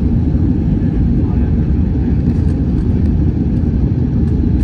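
Steady low rumble of an Airbus A321 airliner's engines and rushing air, even in level with no sudden changes.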